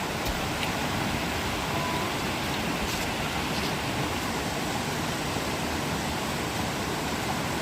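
Rushing water of a gorge stream and waterfall, a steady even rush with no change, and a few faint ticks.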